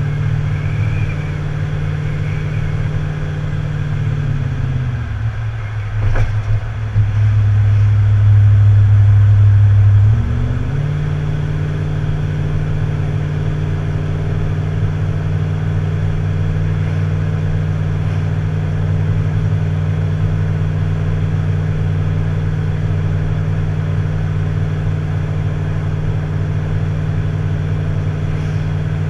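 Tow vehicle's engine running steadily while pulling a boat on a trailer. About five seconds in its pitch drops and it runs louder and deeper for about five seconds, then settles back to the earlier steady hum.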